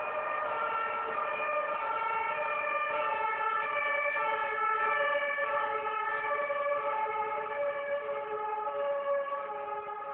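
Emergency vehicle's two-tone siren (German Martinshorn), alternating steadily between two pitches, growing louder to about halfway and then fading toward the end.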